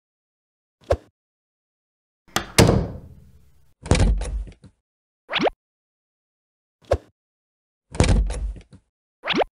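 Plastic toy garage doors banging open with clattering thumps, each followed by a quick rising whoosh, with single sharp clicks in between.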